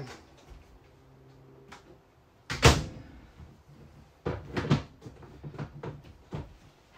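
Hard objects being handled and knocked: one sharp knock about two and a half seconds in, then a quick cluster of knocks and several lighter clicks.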